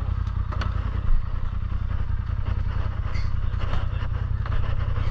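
Polaris RZR turbo side-by-side driving off-road: a steady low engine rumble with scattered rattles and clicks, and one louder knock about a second in.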